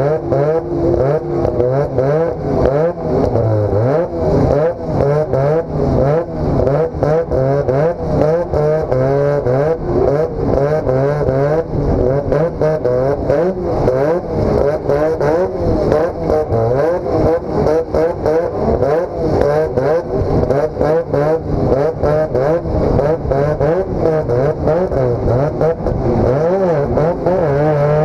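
Rotary engine of a dirt-oval hotrod race car heard from inside the cockpit, revving up and down rapidly and repeatedly as the throttle is worked on and off.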